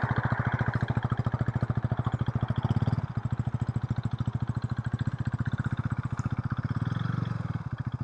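Small 390 motorcycle's single-cylinder engine running at low revs with a steady rapid beat, as a beginner moves off slowly. It gets louder briefly about three seconds in and again around seven seconds, small openings of the throttle, then drops back each time.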